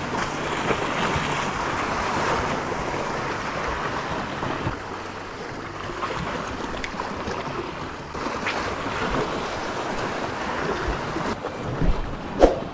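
Steady rushing of sea water and wind against the microphone, with two sharp knocks close together near the end.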